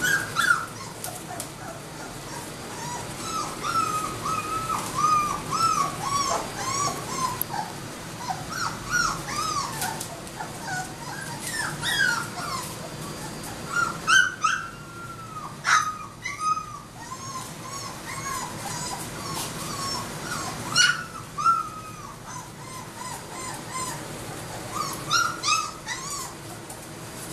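Yellow Labrador retriever puppies whimpering and squealing in many short, high-pitched cries in quick runs, with a few sharper, louder yelps among them.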